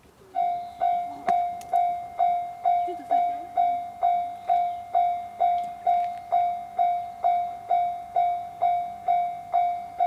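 Japanese railway level-crossing warning bell, starting suddenly about half a second in and then ringing steadily at a little over two dings a second, each ding dying away before the next. The crossing is warning that a train is approaching.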